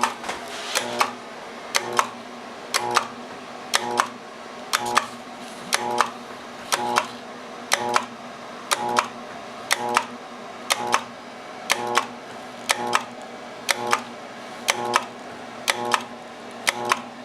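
Armstrong FM-20000T2 transmitter's blower start circuit retrying about once a second: a contactor clicks in with a brief hum and drops out again, over a steady low hum. The three-phase blower motor is failing to start, and these repeated retries eventually trip the blower breaker.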